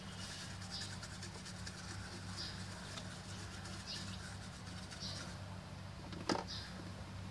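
Small soft brush sweeping dust off a laptop motherboard in short, repeated scratchy strokes, over a steady low hum. One sharp tap stands out a little after six seconds in.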